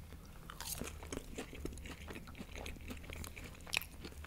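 Close-miked chewing of french fries: soft crunching and small wet mouth clicks, with one sharper click near the end.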